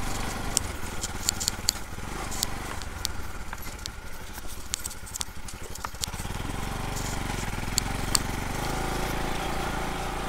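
Motorcycle engine running at low speed over a rough gravel and mud track, with scattered sharp clicks and rattles as the bike jolts over loose stones. Around the middle the engine sinks to a slow, throbbing chug, then pulls harder again after about six seconds.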